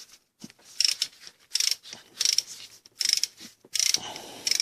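Ratchet wrench fitted with an 8 mm Allen bit clicking through repeated back-and-forth swings, about one every 0.7 s, undoing the bolt on the bottom of the timing chain tensioner.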